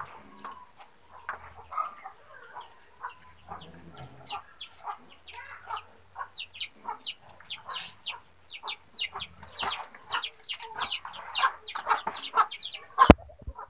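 Chickens clucking, a rapid run of short calls that grows busier in the second half, with one sharp click near the end.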